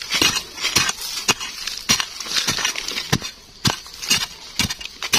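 A digging tool chopping into earth, about two strokes a second, with a short pause about three seconds in.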